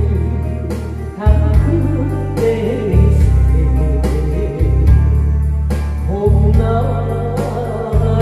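A woman singing a Korean trot song into a headset microphone over a backing track with a heavy bass line that changes note every second or two, played through a PA system.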